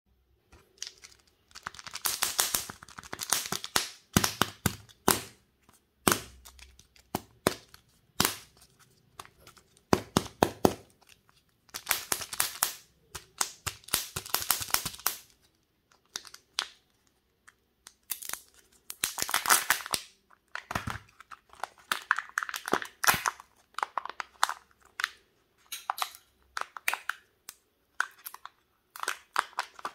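Foil wrappers of Kinder Surprise eggs being crinkled and torn off by hand in bursts of a second or two, with pauses between and scattered sharp cracks.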